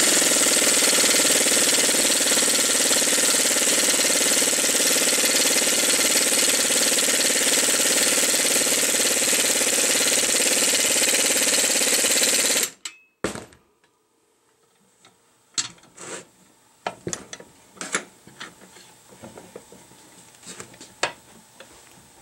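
Impact wrench hammering steadily as it runs a lug nut down a new wheel stud, drawing the stud through the hub flange; it stops suddenly about twelve seconds in. After that, a few light metallic clicks and knocks.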